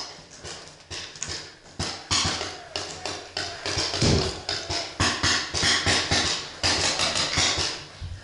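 Incoming paintballs striking the hollow steel bunker in rapid, irregular volleys of sharp cracks, several a second, with a heavier thud about four seconds in.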